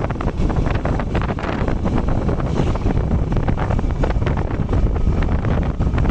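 Heavy wind buffeting the microphone on a moving Honda CG125 motorcycle, with the bike's single-cylinder engine running underneath; the buffeting flutters rapidly and stays steady throughout.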